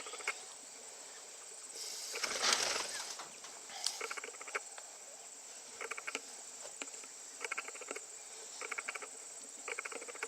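Insect chirping in short pulsed trills, repeating about every second and a half over a steady high whine. A louder noisy burst about two seconds in is the loudest sound.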